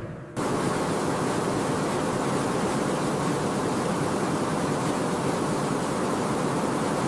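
A steady, even rushing hiss with no distinct tones, cutting in abruptly just after the start.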